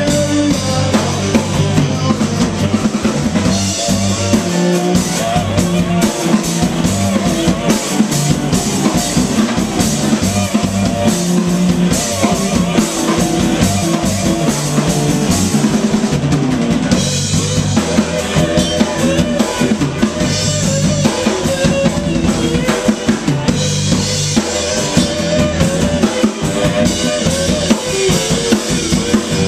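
Live blues band playing an instrumental passage: drum kit, electric bass and guitar, with no singing.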